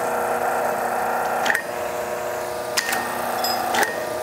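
Kranzle electric pressure washer running with a steady motor-and-pump hum, its pitch shifting briefly with a click about a second and a half in, near three seconds and near four seconds.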